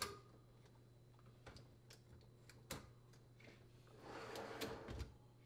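A wire dishwasher rack being fitted onto its slide rails: a sharp click as it snaps into place, a few faint clicks, then a short rattle about four seconds in as the rack rolls in along the rails.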